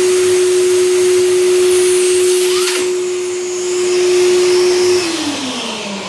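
Vacuum-powered suction turbine drive of a 3D-printed mini lathe running: a rush of sucked air with a steady whine. About five seconds in the whine slides down in pitch and the sound fades as the turbine winds down.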